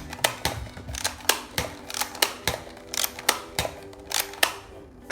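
Rapid series of sharp plastic clicks, about three a second, from a toy foam-dart blaster being worked and fired over and over.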